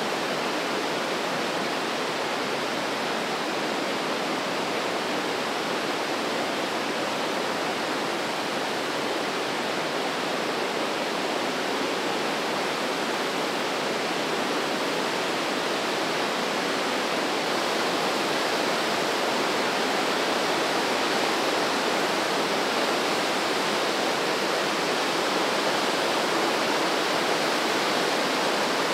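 The Breitach mountain river rushing through a deep rock gorge: a dense, steady rush of white water, growing slightly louder about two-thirds of the way through.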